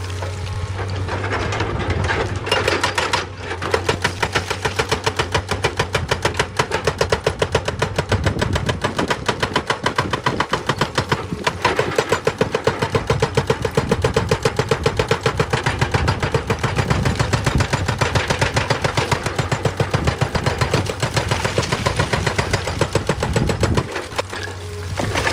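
Excavator-mounted hydraulic rock breaker hammering on stone: a fast, steady run of heavy blows, several a second, over the excavator's engine, stopping shortly before the end.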